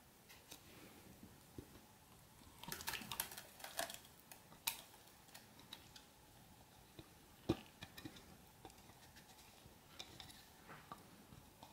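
Silicone spatula scraping a wet blended paste out of a plastic chopper bowl into a metal saucepan: faint scrapes with light clicks and knocks, busiest about three seconds in, and one sharper knock about halfway through.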